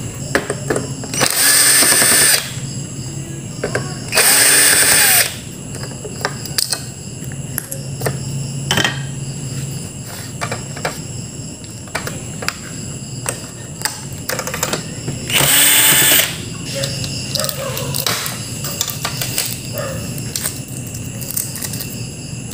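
Cordless drill-driver running in three short bursts of about a second each, backing screws out of an LED TV's frame, with small clicks and knocks of screws and parts being handled between bursts.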